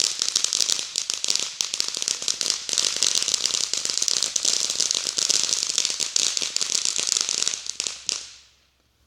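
A consumer firework crackling: a dense, rapid run of sharp little pops that goes on steadily for about eight seconds, then fades out.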